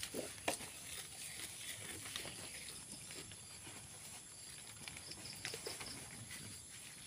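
Faint handling sounds: a few soft taps and rustles as a hand strokes a newborn lamb's chin and mouth, over a steady faint high hiss.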